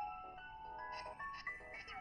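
Ringtone melody playing from a Samsung Galaxy S4 mini's speaker: a tune of short bright notes over held tones.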